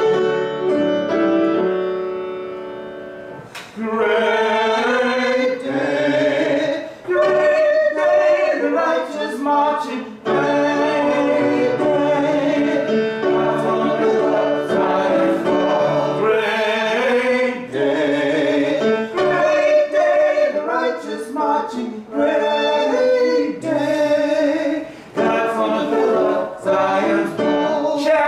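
A small group of voices singing a church anthem with keyboard accompaniment. A held keyboard chord fades at the start, and the voices come in about four seconds in.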